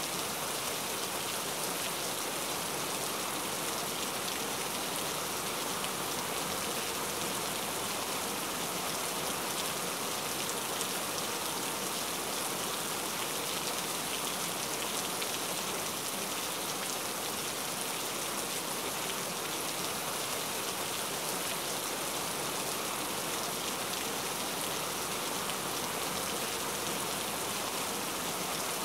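Steady rain: an even hiss of many falling drops, unchanging in level throughout.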